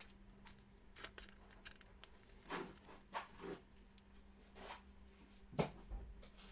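Faint handling sounds of a trading card in a clear plastic holder: scattered light clicks and rustles of plastic under the fingers, over a faint steady hum.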